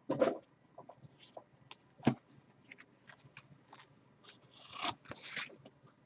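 Hard plastic PSA graded-card slabs being handled: scattered light clicks and knocks, with a short sliding scrape at the start, a knock about two seconds in, and a few rubbing scrapes near the end.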